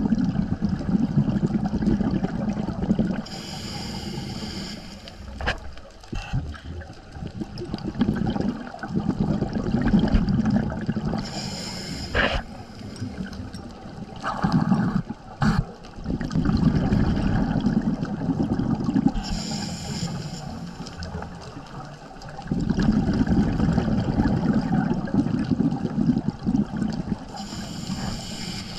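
Scuba diver breathing underwater through a regulator: a short hiss on each inhalation, then a longer rumble of exhaled bubbles, repeating about every eight seconds.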